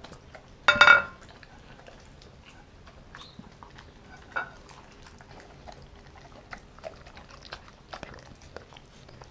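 A German Shepherd–Pitbull–Chow mix dog chewing and licking shrimp off a marble cutting board, with scattered small clicks and smacks of teeth and tongue on the stone. About a second in comes one brief, loud, high-pitched sound.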